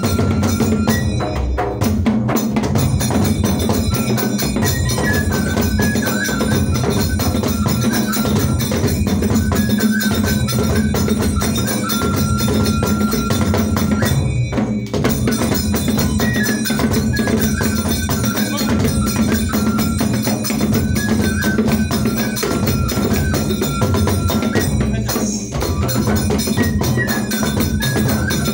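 Indian folk music: fast, dense drum and percussion strokes under a high, repeating melody line, with a short break about halfway.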